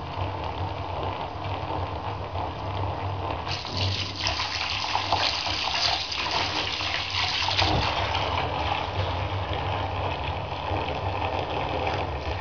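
Bath tap running into a foam-covered bathtub, the water splashing steadily, with a low steady hum underneath. From about three and a half seconds in to nearly eight, the splashing turns brighter and hissier as a hand is held in the falling stream.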